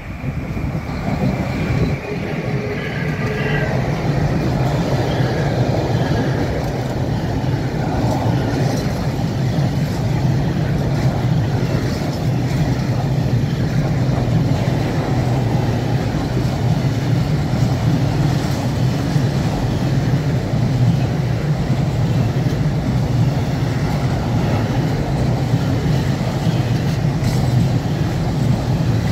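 Slovenian Railways freight train of hopper wagons rolling close past, hauled by an electric locomotive: a steady rumble and rattle of wagon wheels on the rails that swells as the train arrives, with an occasional clank.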